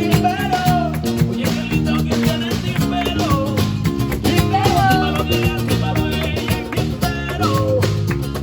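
Flamenco rumba music: guitars strummed in a quick, driving rhythm over bass and percussion, with curving melodic phrases sliding above the chords.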